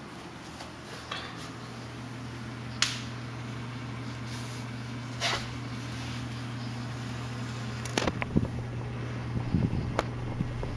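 Aquarium canister filters, a Fluval FX5 and an Eheim Pro 3, running with a steady low motor hum that grows louder, with a few sharp clicks and knocks.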